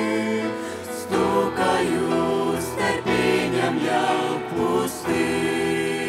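Mixed group of men's and women's voices with a choir singing a hymn in harmony: a held chord, then a new, moving phrase about a second in, settling into another long held chord about five seconds in.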